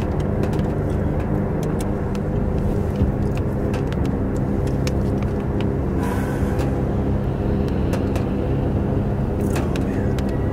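Steady engine drone with an even hum, like a vehicle running at idle, under a rushing wind noise and scattered sharp ticks.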